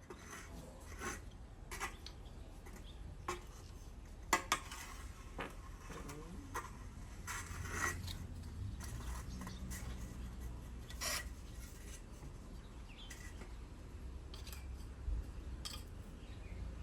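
Faint, scattered scrapes, taps and clicks of small hand work with a tool, typical of mixing and pressing a wood-glue and hinoki-sawdust filler paste, with a few sharper clicks.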